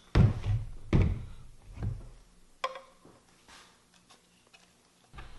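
ABS pipe and fittings knocking as they are handled and set down: three heavy thuds in the first two seconds, then a lighter knock a little later.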